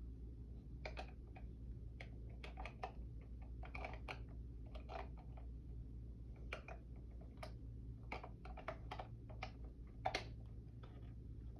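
Faint, irregular light clicks and taps, often several in quick succession, over a low steady hum, with one sharper click about ten seconds in.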